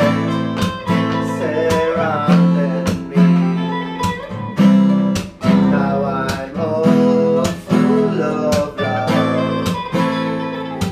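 Two acoustic guitars strummed in a steady rhythm, with a bouzouki picking a lead melody over them.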